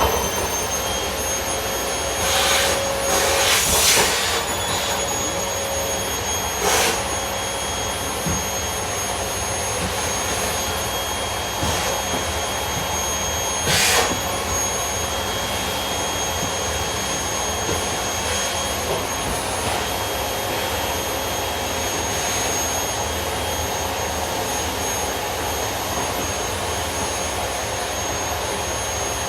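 Household vacuum cleaner running with a steady high-pitched motor whine, with a few brief louder rushes of noise, the longest about two to four seconds in and shorter ones around seven and fourteen seconds.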